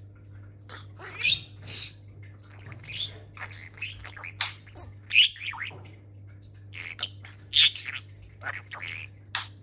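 Budgerigar chattering: a rapid, irregular run of short chirps and squawks, with a few louder squawks among them.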